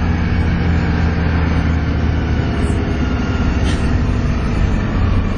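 Volvo B7TL bus's D7C six-cylinder diesel engine running under load, with the high 'hoover' whine over the engine note. The low engine tones thin out about halfway through.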